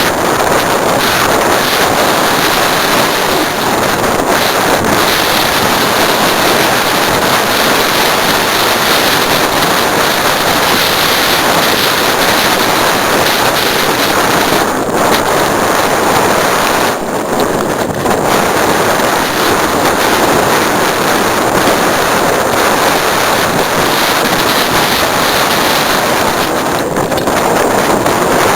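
Loud, steady rush of wind buffeting the microphone of a camera carried on a mountain bike while riding a trail, thinning briefly a few times.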